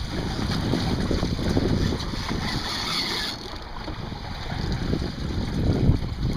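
Wind buffeting the microphone on a boat at sea, an uneven low rumble with water and boat noise underneath, and a brief hiss a few seconds in.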